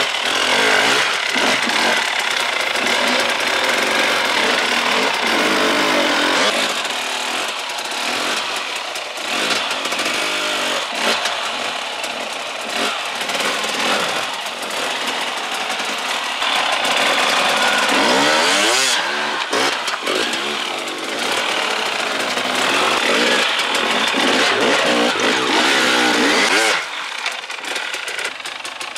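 300cc enduro motorcycle engine running hard off-road, its revs rising and falling over and over as the throttle is worked.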